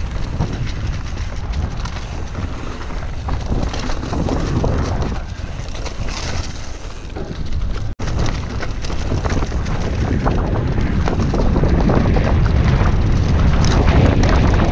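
Mountain bike (Commencal Meta) descending a dirt forest trail at speed: wind buffeting the microphone over the rumble of the tyres, with frequent rattles and knocks from the bike over the bumps. The sound cuts out for an instant about eight seconds in.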